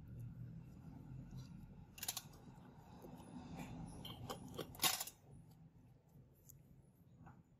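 Handling noise: a few short, sharp clicks, the loudest about five seconds in, over a faint low hum.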